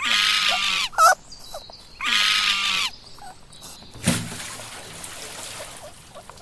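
Two loud, drawn-out animal calls, each just under a second long and about two seconds apart, with a short sharp call between them. About four seconds in, a sudden burst of noise trails off slowly.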